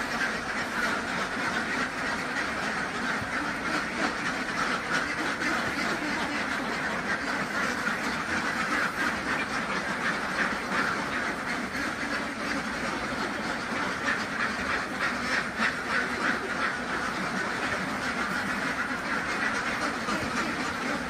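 A large flock of ducks quacking without pause, a dense, steady din of overlapping calls.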